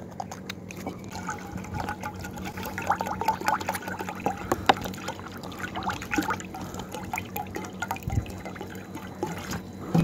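Water poured from a plastic bottle into a shallow dish, an uneven splashing trickle.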